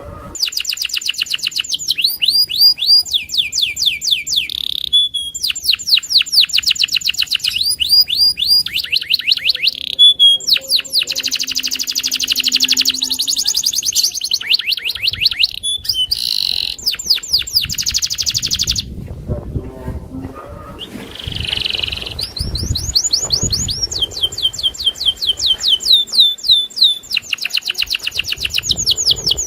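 Domestic canary of the 'loper' type singing long, unbroken phrases of fast repeated falling notes and trills, with only short pauses between phrases.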